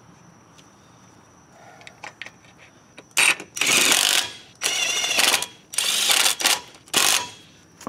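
Hand ratchet wrench clicking in about five quick bursts, starting about three seconds in, as lug nuts are run onto a wheel.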